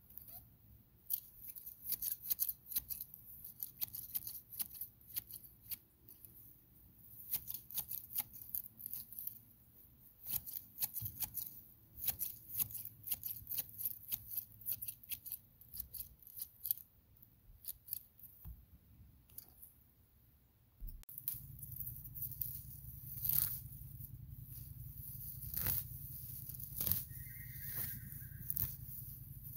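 Green-handled grass shears snipping through tall grass in many quick, repeated cuts. About two-thirds of the way through, a steady low rumble sets in while grass is pulled and torn out by hand.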